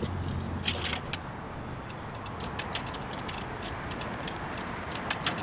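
Car keys jangling and clicking in the ignition as the key is turned over and over, in a car that will not start.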